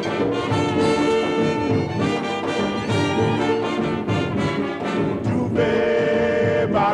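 Up-tempo band music led by brass, with trumpets and trombones playing a rhythmic tune, ending in a held chord near the end.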